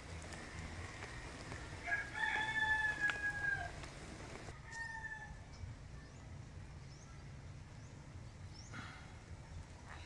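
A rooster crowing, one long call about two seconds in that sags in pitch at the end, followed by a shorter, fainter call. Small birds chirp faintly.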